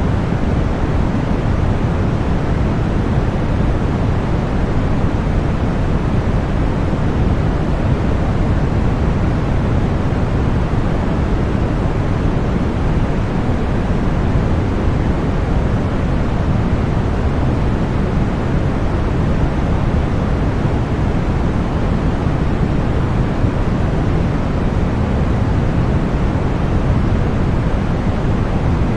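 Continuous deep white noise for tinnitus masking: a steady, unchanging rush weighted toward the low end, with no tones or breaks.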